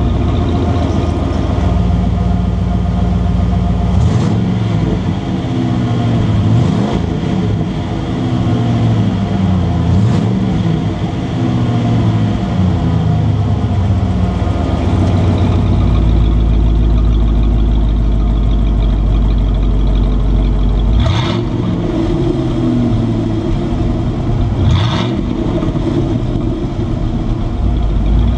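1995 Ford F150's 302 V8 running through its exhaust, fitted with an exhaust cutout: idling, and revved up and back down several times, some revs opening with a short sharp crack.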